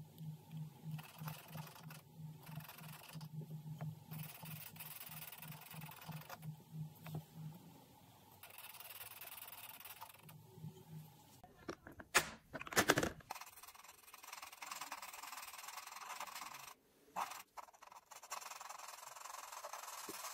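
Alcohol marker tip rubbing on paper, first in short rhythmic back-and-forth strokes and later in a longer, steadier scratchy stroke. A few loud sharp clicks come about two-thirds of the way through.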